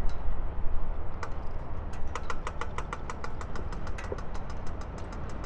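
Street ambience with a steady low rumble of traffic. About two seconds in, a run of rapid, evenly spaced ticks starts, about seven a second, and stops after about three seconds.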